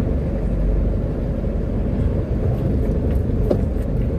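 Truck's diesel engine running with a steady low rumble, heard from inside the cab as the truck pulls out and moves off slowly.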